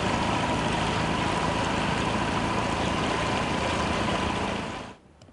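Small outboard motor on a wooden fishing boat running steadily at cruising speed, with a steady whine over the engine noise; the sound cuts off near the end.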